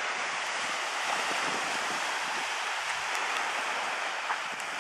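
Small waves breaking and washing up a sandy beach: a steady hiss of surf.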